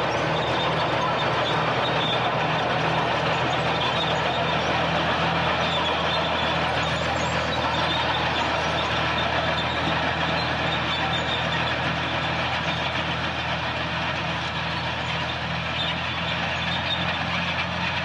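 Bulldozer's diesel engine running steadily, a low drone with a regular pulse in it under a dense mechanical rumble, growing slightly quieter near the end.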